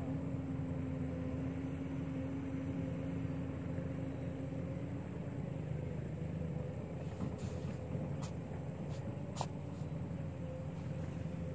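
A motor running steadily with a low drone. A few light clicks come between about seven and nine seconds in.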